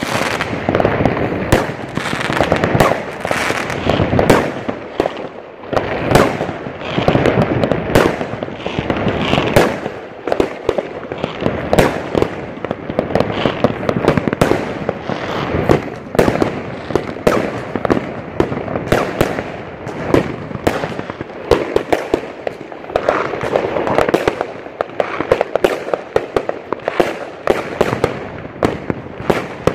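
Many fireworks and firecrackers going off at once: a dense, unbroken run of bangs and crackling.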